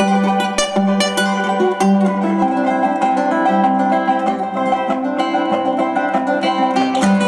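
Acoustic guitar music played live: quick plucked notes ringing over a low note that keeps repeating.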